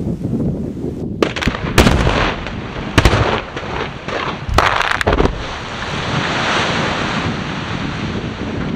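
Quarry rock blast: several sharp explosive bangs over the first few seconds, the loudest cluster about halfway through. A steady rushing noise follows as the blasted rock face collapses and throws out dust and fly-rock.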